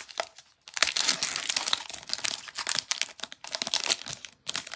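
Foil wrapper of a Panini Illusions football card pack being torn open and crinkled by hand. There is a dense run of crackling and rustling from about a second in until shortly before the end.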